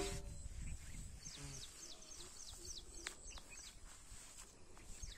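A bird chirping: runs of short, high notes, each falling in pitch, at several a second.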